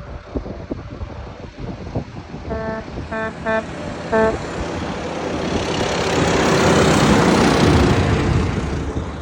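Truck horn giving four short toots, then the truck passing close by, its engine and road noise swelling and fading away.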